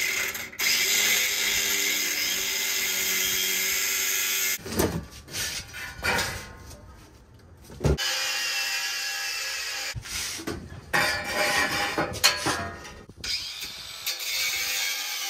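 Angle grinder with a cutting disc cutting through the bull bar mounting, a high-pitched running cut in several long stretches broken by short pauses and a few brief bursts.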